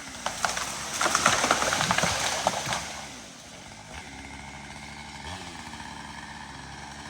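A felled tree giving way and crashing down, with a loud burst of cracking and snapping wood lasting about two seconds. After that, a small engine idles steadily.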